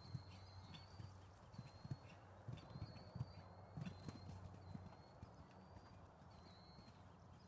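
Horse's hoofbeats thudding faintly on sand arena footing at a canter, a few beats a second, louder in the first half.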